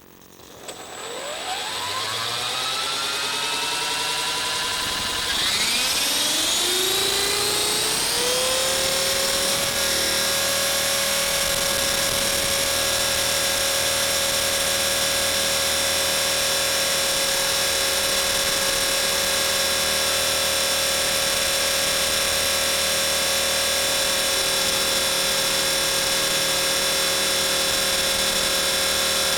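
Electric motor and rotor of a Blade 450 3D RC helicopter spooling up: a whine starts about half a second in and rises in pitch, climbs again between about five and eight seconds, then holds a steady high pitch at flying rotor speed.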